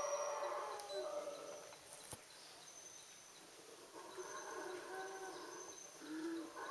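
Howler monkeys roaring, a rough, growling chorus that fades out about a second and a half in and builds again from about four seconds in. Faint high thin calls from birds or insects can be heard in the quieter middle.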